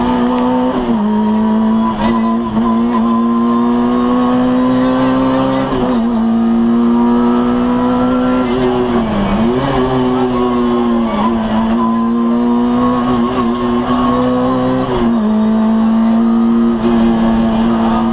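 Citroën AX GTI rally car's four-cylinder engine running hard at high revs, heard from inside the cabin. Its pitch holds high and creeps upward, dipping sharply and briefly about five times before climbing again.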